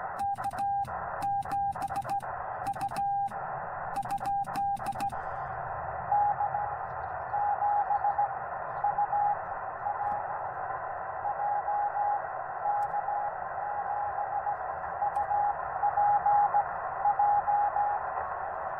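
Morse code on an HF transceiver. For about five seconds a straight key sends as a steady single-pitch sidetone, with a click at each key-down. Then a weak station's reply comes in as fainter Morse tones over steady band hiss.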